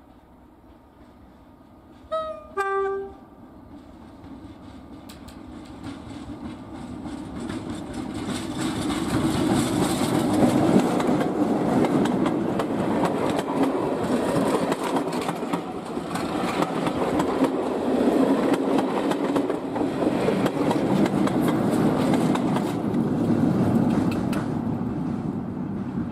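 A diesel locomotive sounds its two-tone horn about two seconds in, a higher note then a lower one. It then passes hauling a train of coaches: the engine and the wheels on the rails build to a loud, steady rumble that eases slightly near the end.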